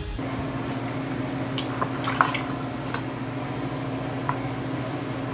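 A few light, sharp taps of a kitchen knife on a small cutting board, over a steady low electrical hum.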